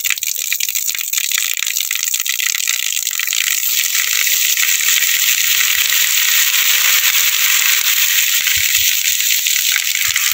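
Water gushing under pressure from a brass gate valve at the base of a full ferrocement tank, spraying and splashing onto wet ground. The rush grows fuller over the first few seconds, then holds steady.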